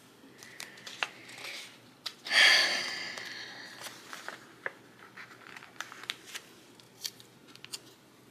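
Paper rustling from a sticker book as a sheet is turned, one louder swish about two seconds in, then light ticks and crackles as a sticker is peeled off and handled.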